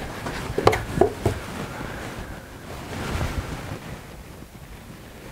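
Large steel palette knife scraping and mixing thick oil paint on the palette, with three or four sharp taps about a second in.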